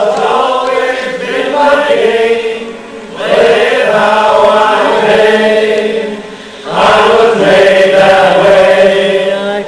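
Music with singing voices holding long notes, in three swelling phrases with short dips between them.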